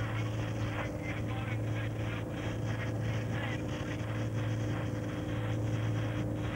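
Helicopter engine and rotor noise heard from inside the cabin: a steady drone with a constant low hum that does not change pitch.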